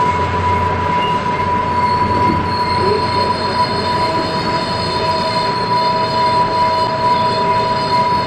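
UTA FrontRunner commuter train heard from its leading cab car: a steady running rumble under a continuous high-pitched whine. A second, lower tone joins about three and a half seconds in, and a low hum drops away about a second in.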